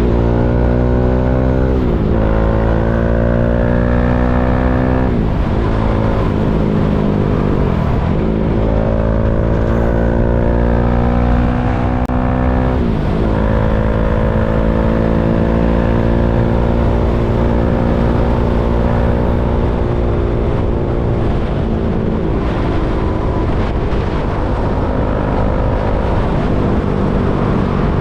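KTM Duke 390's single-cylinder engine accelerating through the gears: the engine note climbs and drops sharply four times as it is shifted up. After that it runs at a steady, slowly falling pitch.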